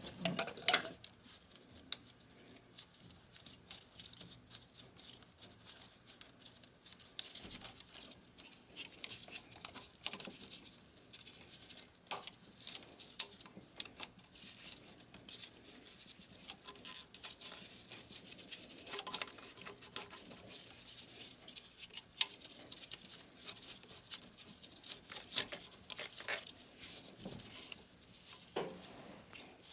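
Irregular small clicks, snaps and scratching of plastic wiring-harness clips, connectors and loom being pried loose with a hand tool and pulled about by hand, with a few louder clicks just after the start and again near the end.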